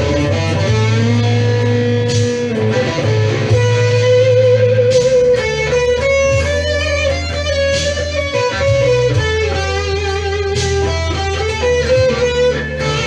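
Electric guitar playing a blues lead of bent, wavering single notes over sustained low bass notes.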